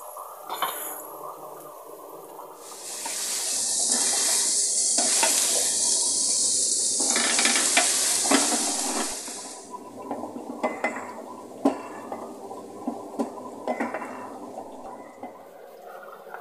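Chopped garlic frying in hot oil in a nonstick frying pan, with a wooden spatula stirring and tapping against the pan. A loud sizzle rises about three seconds in and holds for about seven seconds, then drops back to quieter frying with scattered clicks of the spatula on the pan.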